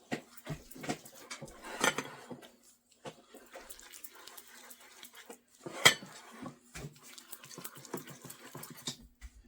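A spoon clinking and scraping in a bowl as a warm peanut-butter syrup mixture is stirred, with a dog playing with his ball in the background. Two sharp knocks stand out, about two and six seconds in, over a faint steady hum.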